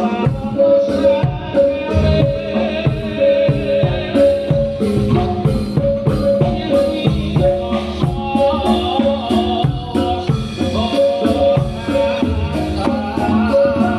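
Javanese gamelan-style music accompanying a Reog Bantul dance: repeated pitched metal notes over drum strokes in a steady rhythm.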